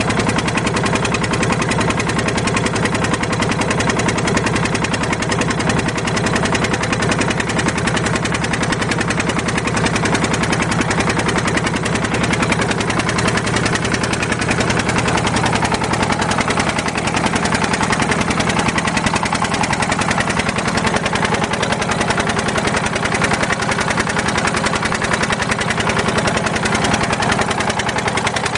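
An engine running steadily at an even speed, with a fast, regular chugging pulse and no change in pace.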